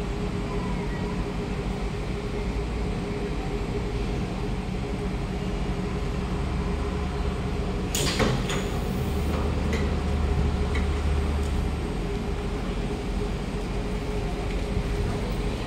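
Siemens C651 train standing at the platform with a steady electrical hum, then about halfway through a sharp clunk as the train doors and platform screen doors slide open, followed by a few seconds of low rumbling and small clicks from the moving doors.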